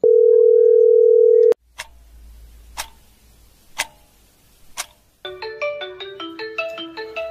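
A steady telephone ringback tone on the caller's side of a ringing call for about a second and a half. Then a wall clock ticks four times, about once a second. About five seconds in, a marimba-style mobile ringtone starts playing on the phone receiving the call.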